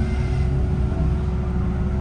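VDL Citea SLFA-180 Hybrid bus running, a steady low rumble under a constant electrical whine with fainter higher tones; this odd whine is the one put down to the hybrid battery system.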